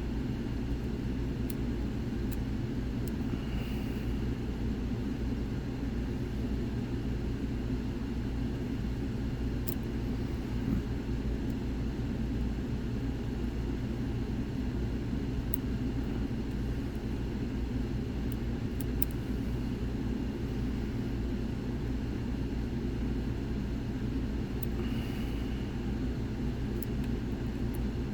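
A steady low hum throughout, with a few faint, sharp clicks from lock picks working the pins of a pin-tumbler cylinder lock.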